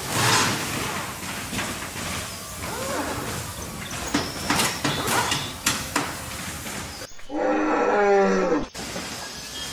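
A short growling roar sound effect lasting about a second and a half, starting about seven seconds in and falling in pitch at the end. Before it come scattered clicks and knocks of plastic toys and sticks being handled.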